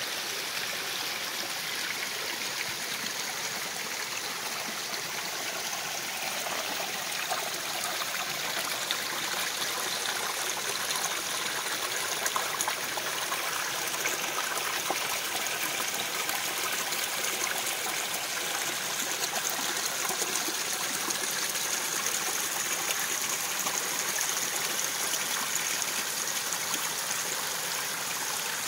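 Small mountain stream running over stones: a steady rush and trickle of flowing water.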